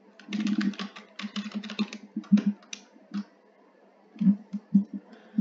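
Computer keyboard typing: a quick run of keystrokes for about three seconds, then a few scattered key presses.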